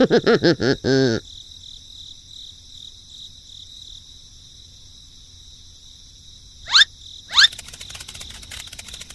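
Insects chirring in a steady high drone. A quick run of loud pitched pulses opens it, and two sharp rising calls come about seven seconds in.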